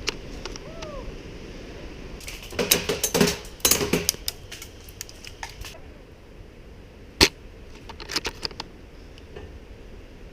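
Sharp clicks and clatter from airsoft play: a quick run of rattling clicks about two and a half to four seconds in, a single loud sharp snap about seven seconds in, then a few lighter clicks.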